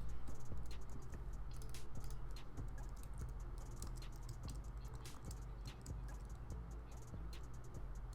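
Typing on a computer keyboard: an irregular run of key clicks over a low steady hum.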